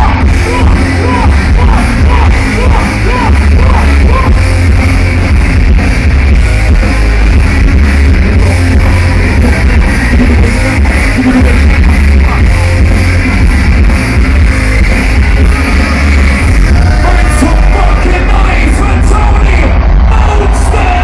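Loud live electronic rock music from a band with decks, guitar and drums, heavy in the bass with a steady beat.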